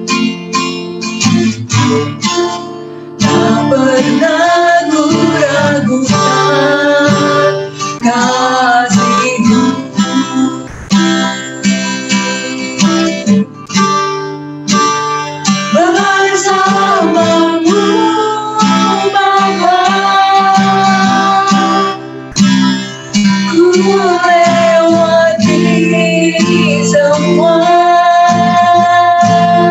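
A woman singing a song with long held notes, accompanied by a strummed acoustic guitar.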